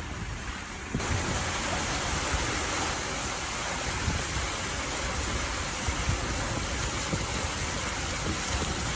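Steady rushing roar of stormy sea surf, thickening about a second in, with wind buffeting the microphone.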